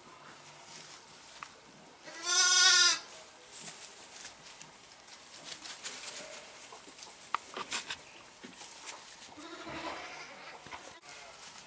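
A lamb bleats loudly once about two seconds in, a quavering call lasting under a second, and fainter bleats follow later, the last near the end. Light rustling and small clicks fill the gaps.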